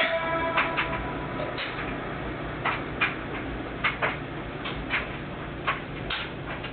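The tail of a song dies away at the very start, then a steady hiss with light, irregular clicks and taps, about a dozen spread unevenly through the rest.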